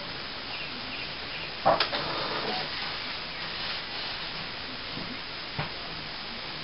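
Epson R200 inkjet printer running its ink-charging cycle: a steady, noisy whir from the ink system with the print head parked, broken by a click a little under two seconds in and a fainter one about five and a half seconds in.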